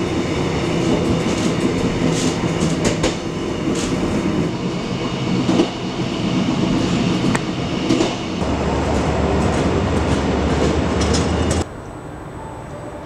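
Passenger train running on the rails, heard from inside the carriage: a steady rumble with scattered clicks from the wheels. A low hum joins it past the middle, and near the end the train noise cuts off suddenly to a much quieter background.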